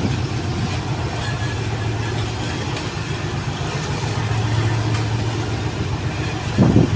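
Indian Railways passenger coaches rolling slowly past, over a steady low engine drone.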